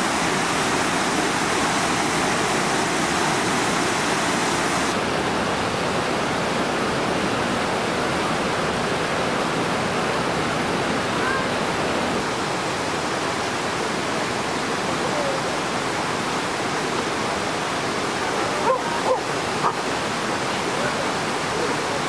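Water rushing out of a stone mill dam's sluice and down a rocky stream in cascades: a steady, loud rush. Three short knocks come in quick succession about three seconds before the end.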